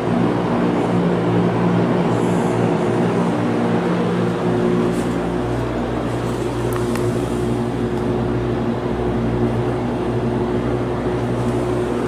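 Vintage Lakewood S-223 box fan with its Westinghouse motor running on high: a steady rush of air over a quite noticeable motor hum, which the owner counts as a humming issue and is unsure about.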